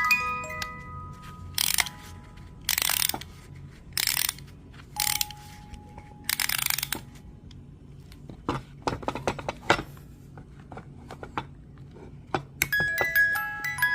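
Rusty music box: a few plucked comb notes, then five short harsh scraping rasps and a spell of dense clicking from its mechanism, before the tinkling notes start up again near the end.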